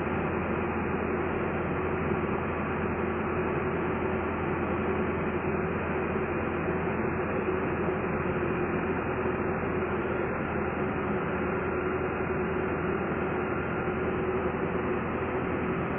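Drill rig's engine and drilling machinery running steadily, a constant mechanical drone with a steady hum and no change in pace.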